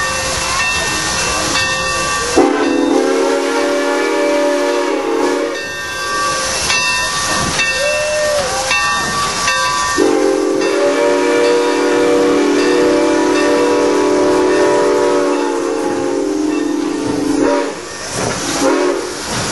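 Steam locomotive's chime whistle sounding over a steady hiss of steam: a blast of about three seconds, a short toot, then a long blast of about seven and a half seconds, and another short toot near the end.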